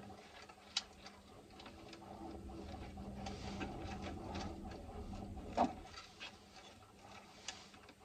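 Quiet hand work on the wiring of an old alarm control panel: rustling and small scrapes as cable cores are handled at the terminal block, with a few sharper clicks, the loudest a little over halfway through. A steady hum runs underneath.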